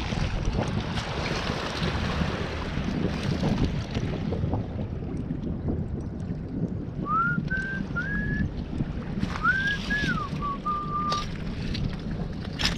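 Wind buffeting the microphone, with scattered crunches of footsteps on stony foreshore. About seven seconds in, a few short whistled notes, mostly rising with one falling, come over about four seconds.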